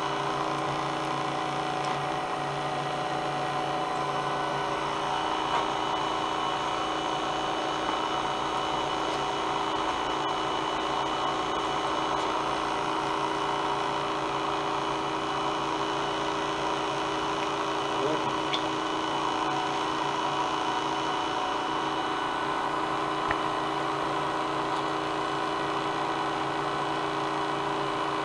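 Professional cotton candy machine running, its motor spinning the heated head: a steady whirring hum of several held tones that does not change.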